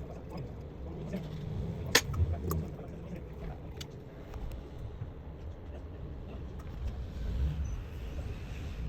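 Steady low rumble of background noise with a few scattered sharp clicks, the loudest about two seconds in.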